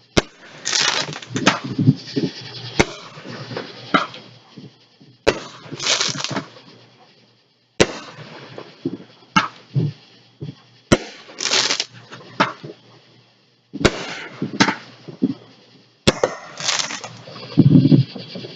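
Fireworks going off: a string of sharp bangs with bursts of crackling, sometimes several reports a second.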